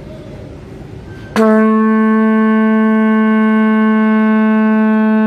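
A conch shell trumpet is blown once, starting about a second and a half in, as one long, steady, very loud note that sounds like a ship's horn.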